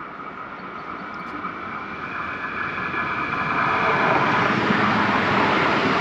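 Train approaching, its running noise growing steadily louder until it is close and level about four seconds in.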